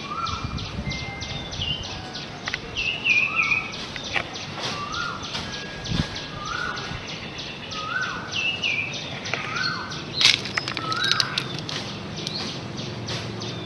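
Outdoor bird calls: short chirps repeated about once a second, over a steady background noise with a fast even ticking.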